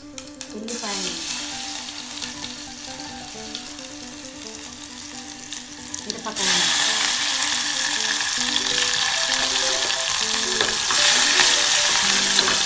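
Cumin seeds sizzling and crackling in hot oil in a steel pot. About six seconds in, green chillies go into the oil and the sizzle turns suddenly louder; it then stays loud while the pot is stirred.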